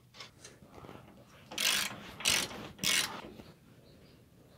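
Wrench tightening the bolt on a shock absorber's lower mount, making three short ratcheting bursts a bit over half a second apart.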